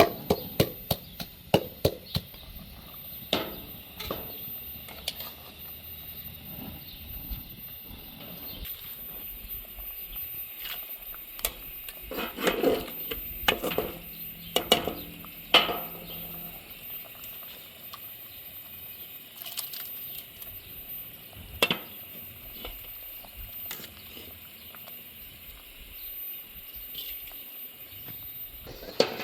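Food-preparation noise: a quick run of knife chops on a board at the start, then scattered sharp knocks and handling noise over a faint steady hiss.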